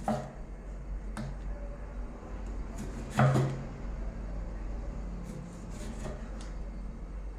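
Kitchen knife slicing through small yellow tomatoes and knocking on a thick wooden chopping board: a handful of separate knocks a second or so apart, the loudest with a dull thud about three seconds in.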